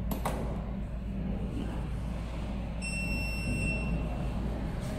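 The emergency-stop button on a jewelry laser welding machine clicks once as it is turned. About three seconds in the machine gives a single high electronic beep lasting about a second as it powers up, over a steady low hum.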